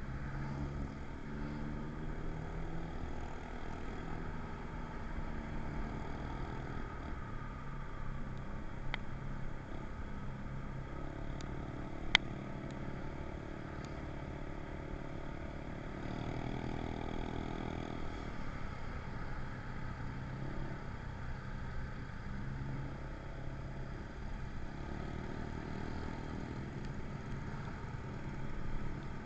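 A vehicle engine running, its pitch rising and falling, with one sharp click about twelve seconds in.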